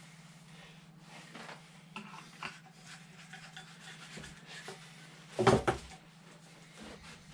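Light rubbing and scraping from hand work on a part, with a louder knock about five and a half seconds in, over a steady low hum.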